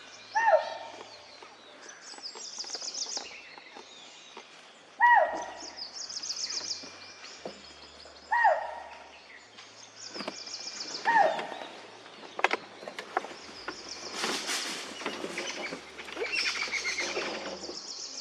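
A deer giving sharp alarm calls, four short falling barks a few seconds apart, over small birds trilling high in the background. A deer's alarm call warns of a predator such as a tiger.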